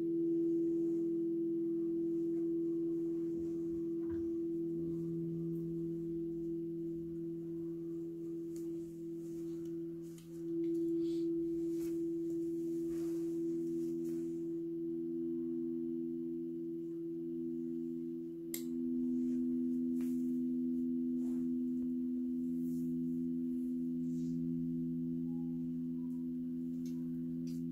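Alchemical quartz crystal singing bowls played with a mallet: several steady pure tones hum together and overlap, with another bowl swelling in every few seconds.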